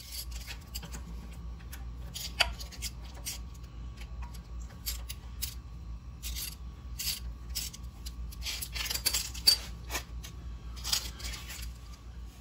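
Metal parts clinking and scraping as a long metal rod tool and a washer are handled, in irregular short clicks, with a sharper knock about two and a half seconds in and a busier run of scrapes around nine to ten seconds.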